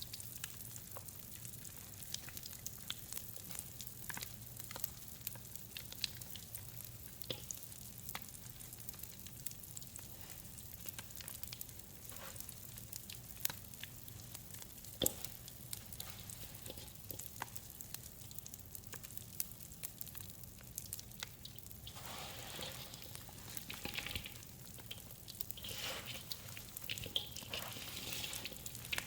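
Mr. Bubble Bath Crackles popping and crackling as they get wet in detergent paste, a scattered sizzling crackle of many tiny sharp pops. The sound grows denser and wetter in the last several seconds.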